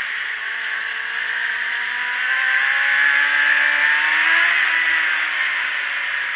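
Wind rushing over an onboard camera on a sport motorcycle at track speed, with the bike's engine note underneath climbing steadily in pitch as it accelerates. The note eases off a little before the end.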